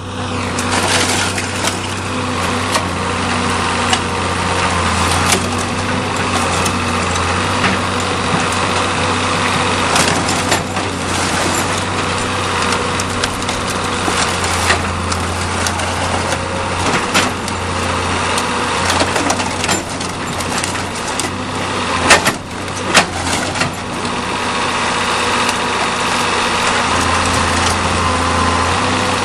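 Excavator's diesel engine running steadily while its hydraulic shear cuts up a car, with the car body's metal crunching, creaking and snapping. Two loud sharp snaps come about three quarters of the way through.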